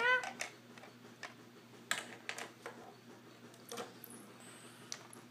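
Scattered light plastic clicks and taps of Lego pieces being handled and set down on a Lego build, irregular and a second or so apart, after a brief child's vocal sound at the very start.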